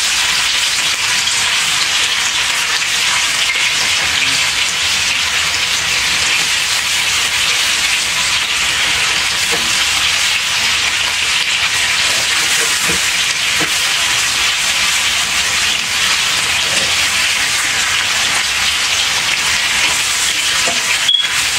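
Ground-beef meatballs frying in a stainless steel skillet: a steady, loud sizzle of hot fat as they brown on the outside, partway through cooking, while they are turned with a spatula. A sharp click near the end.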